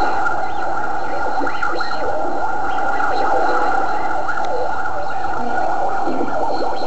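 Cartoon soundtrack of an animal crowd clamouring, many overlapping short calls and cries, played back through a computer's speakers.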